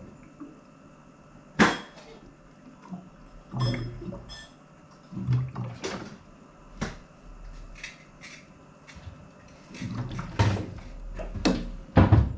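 Plastic water bottles and containers knocking and clattering as they are handled at a fridge, about a dozen separate knocks with short pauses between, the sharpest about a second and a half in and near the end.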